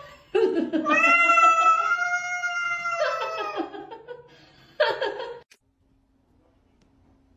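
A cat yowling in a confrontation with another cat: one long drawn-out yowl of about three seconds, then a short one about five seconds in.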